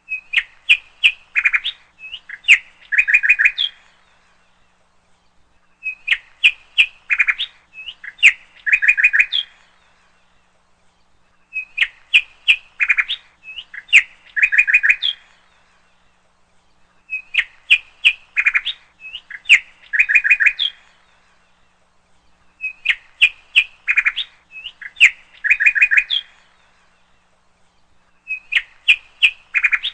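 A small bird's chirping song: a few sharp chirps and then a quick trill, the same phrase repeating exactly about every six seconds, as from a looped recording.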